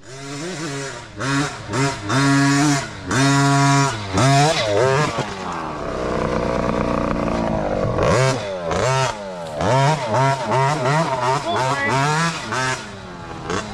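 Mini dirt bike engine revved in quick throttle blips, its pitch rising and falling over and over, with a steadier stretch in the middle.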